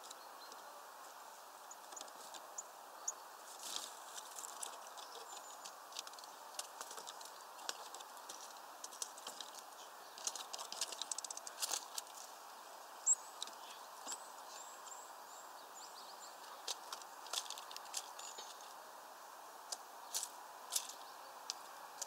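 Small birds, Eurasian tree sparrows, pecking at sunflower seeds on a feeder tray: irregular sharp clicks and taps, busiest about halfway through, with a few faint high chirps, over a steady background hiss.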